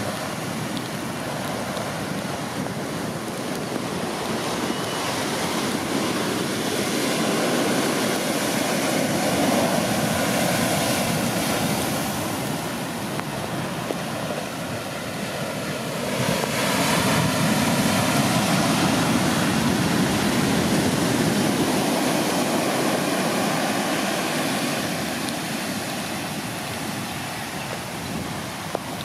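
Heavy storm surf: waves breaking and whitewater washing up the beach in a continuous rush, swelling louder about eight seconds in and again from about sixteen seconds as bigger waves come through.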